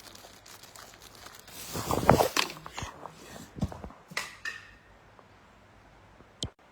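Handling noise: rustling and crinkling with scattered knocks and clicks, loudest about two seconds in, and a sharp click near the end.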